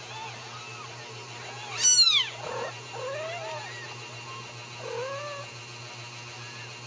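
Young Ragdoll kittens mewing: a string of small, high mews, with one loud, shrill cry about two seconds in and a few lower mews after it.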